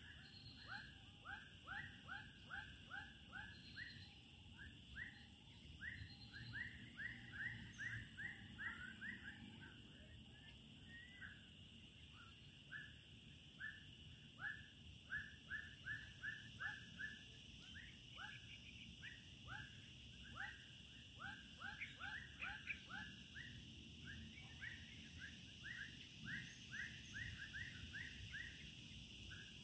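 An animal calling in rapid runs of short, downward-sliding notes, several a second, over a steady high-pitched drone of insects.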